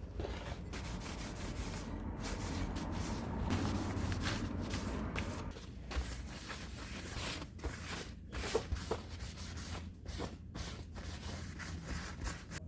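Irregular hand rubbing and scraping strokes on a part, over a steady low hum.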